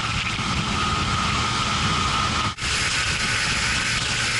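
A boat running at speed on Evinrude G2 E-TEC 300 two-stroke direct-injection outboards: a steady engine drone under loud wind and water rush. The sound breaks off for a moment about halfway through.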